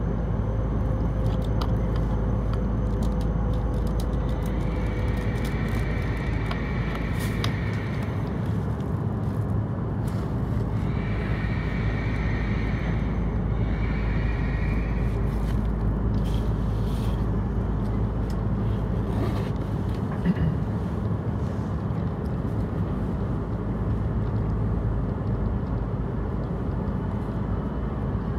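Inside an E7/W7-series Shinkansen car as the train comes to a halt at a station and stands: a steady low hum, with a faint whine falling away in the first few seconds as it stops. Brief high electronic tones sound three times in the middle.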